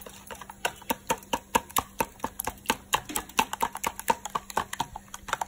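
A fork beating eggs in a plastic bowl: a fast, even run of clicks as it strikes the bowl's sides, several a second.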